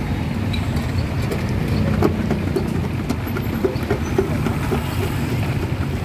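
Steady low rumble of road traffic and vehicle engines, with scattered small clicks and knocks.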